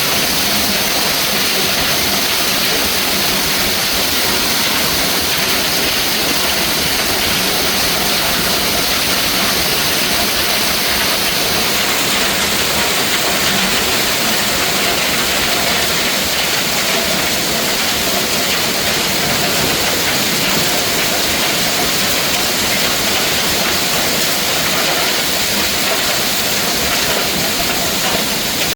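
Hailstorm: hail and heavy rain pelting down in a loud, steady, dense hiss.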